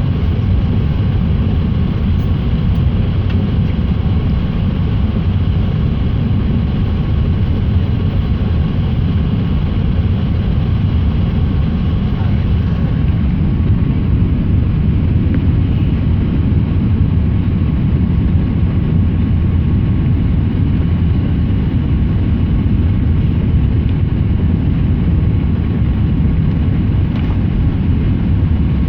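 Steady cabin noise inside an Airbus A380 airliner descending to land: a loud, even low rumble of engines and airflow, with a faint steady tone above it.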